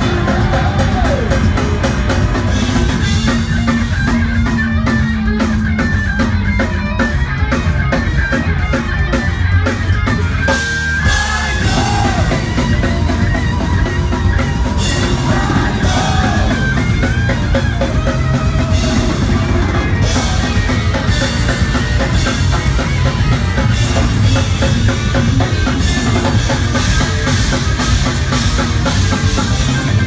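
A rock band playing live: electric guitars, bass guitar and drum kit, loud and continuous.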